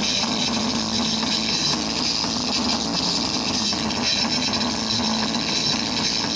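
Small Jam speaker driver overdriven by an amplifier, playing bass-heavy music as a steady, harsh, distorted sound.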